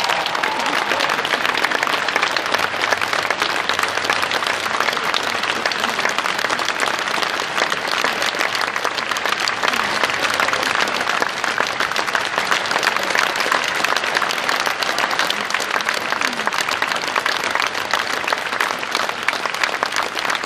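A large audience applauding steadily, a dense, even clapping.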